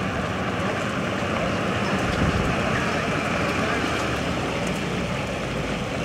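Steady rumble of a pickup truck's engine and rolling tyres as it pushes a supermodified race car, with some wind on the microphone, a little louder from about two seconds in.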